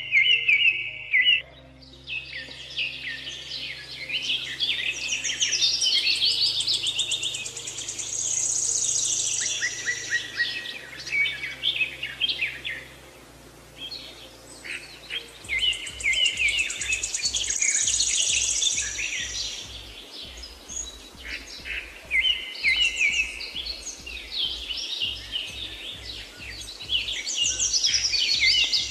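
Many songbirds chirping and singing at once in a dense, continuous morning chorus. Underneath runs soft low background music, a held tone that turns into a quick, even low pulse about halfway through.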